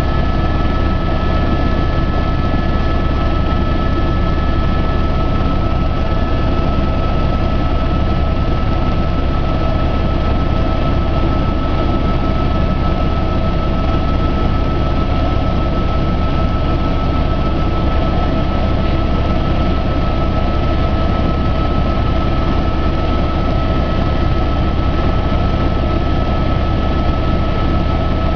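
Aircraft engine noise heard from inside the cabin: a steady, loud drone with a deep rumble and a constant high whine over it.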